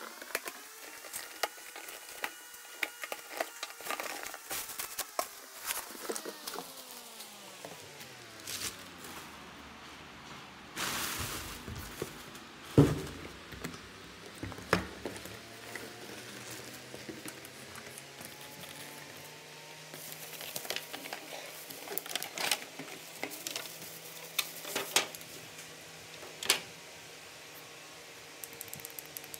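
Unboxing handling noises: cardboard and packaging being moved and opened, with scattered rustles, clicks and light knocks, a scraping burst of about a second near the middle and one sharp knock just after it. A faint humming tone slowly rises and then falls in pitch during the first eight seconds or so.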